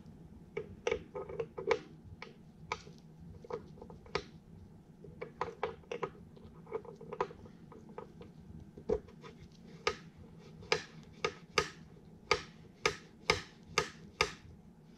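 Steel valve lifters of a 1942 Farmall H engine clicking in their cast-iron block bores as they are worked up and down and twisted to spread assembly lube. Irregular clicks at first, then a steadier run of louder clicks, about two a second, over the last five seconds.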